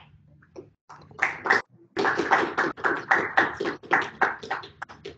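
A small audience applauding: a few scattered claps about a second in, then steady clapping that thins out near the end.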